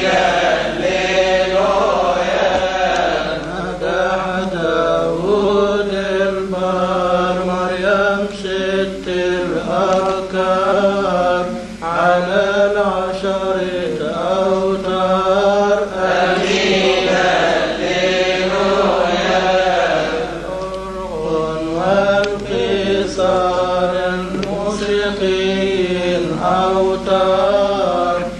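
A man's voice chanting a Coptic Orthodox hymn in long, wavering, ornamented melodic lines.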